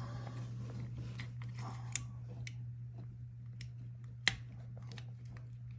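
Small clicks and scraping as a plastic refrigerator compressor start relay is pried and wiggled off the compressor's pins, with one sharp click about four seconds in. A steady low hum runs underneath.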